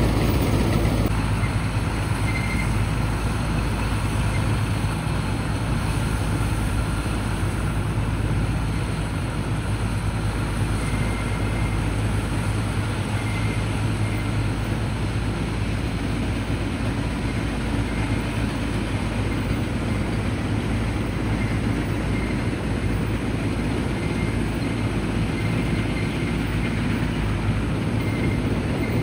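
Mini combine harvester working through a rice crop: a steady diesel engine drone.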